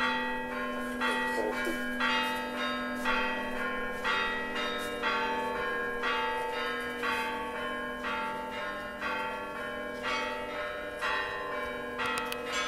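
Orthodox church bells ringing: a quick run of strikes on several smaller bells, each ringing on, over the steady hum of a larger bell.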